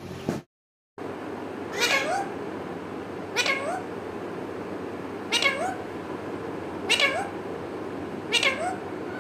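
Alexandrine parakeet calling: five short cries about one every second and a half, each ending in a quick rise in pitch.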